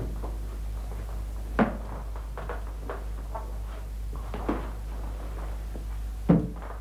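A few scattered knocks and clunks, the loudest about a second and a half in and near the end, over a steady low hum.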